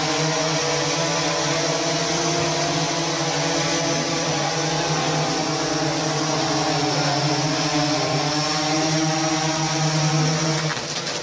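Small multirotor drone's propellers and motors buzzing steadily in flight, one even pitched hum that cuts off suddenly near the end.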